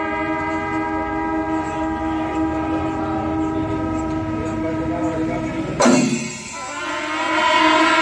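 Kombu, the C-shaped brass horns of Kerala temple music, blowing long sustained notes over rapidly beaten chenda drums. About six seconds in the horn note breaks off suddenly, then a fresh, louder horn blast swells toward the end.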